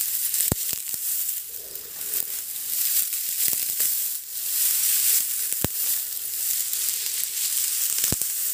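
Dry, dead plant stalks rustling and crackling as they are pulled up by hand, with three sharp clicks spread through it.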